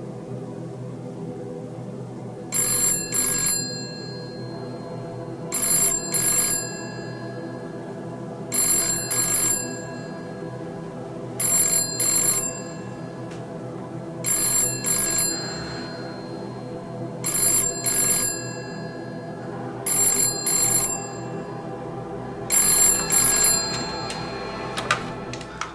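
Telephone ringing in a double-ring pattern, eight pairs of rings about three seconds apart, over a low sustained film-score drone.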